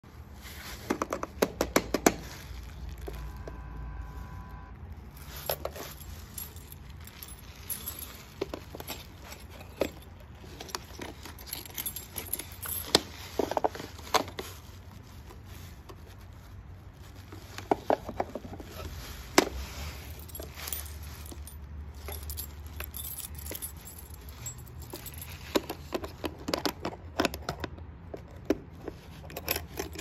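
Small wooden doors, latches and brass hardware on a Melissa & Doug wooden doorbell dollhouse being handled: a long series of clicks, knocks and rattles, with keys jangling. About three seconds in, a short electronic chime from the toy's doorbell.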